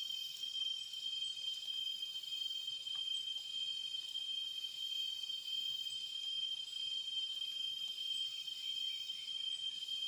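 Steady, high-pitched chorus of forest insects, a continuous even drone that does not change.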